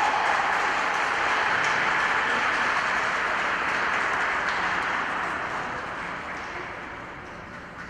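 Audience applauding, dying away over the last few seconds.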